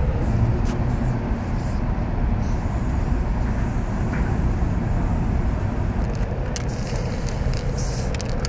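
Aerosol spray paint cans hissing: a few short bursts, then one continuous spray lasting about three and a half seconds, then short bursts again near the end. A steady low rumble runs underneath.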